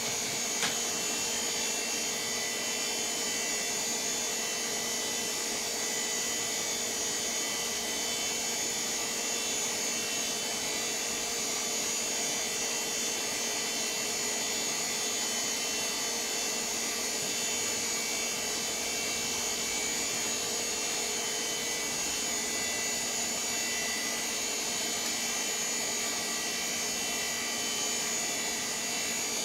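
VAX 4000-100A minicomputer running steadily during its power-on self-test: an even whir of its cooling fans and drives with a constant hum in several pitches. A single short click comes under a second in.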